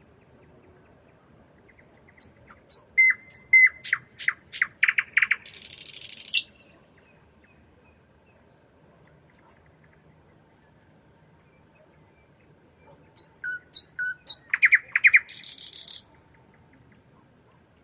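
Nightingale singing two song phrases several seconds apart. Each is a run of sharp clicking and whistled notes that speeds up and ends in a harsh buzzing rattle.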